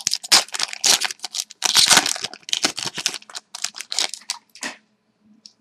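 A hockey card pack's wrapper being torn open and crinkled: a dense run of crackling that stops about five seconds in.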